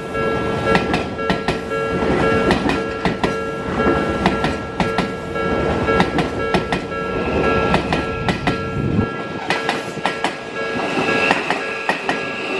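Odakyu Romancecar EXEα (30000 series) ten-car train passing, its wheels clattering over rail joints in quick runs of paired clicks. A level crossing warning bell rings steadily throughout. The low rumble drops away about three-quarters of the way through.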